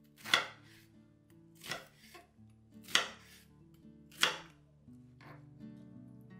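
Chef's knife slicing through a red onion and striking a wooden cutting board: four distinct slow cuts about 1.3 s apart, with a couple of lighter ones between them. Soft background music plays underneath.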